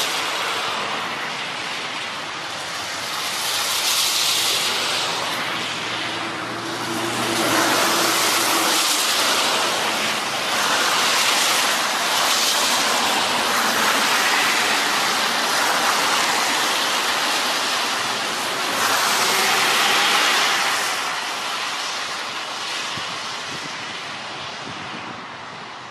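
Road traffic passing on a wet, slushy road: tyres hissing on the wet surface, the noise swelling and fading as each vehicle goes by. A deeper engine hum joins about seven seconds in, and the traffic noise fades toward the end.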